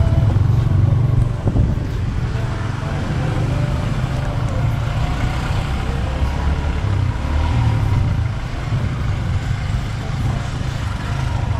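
Motorbike riding along, its engine running under a steady low rumble of wind on the microphone.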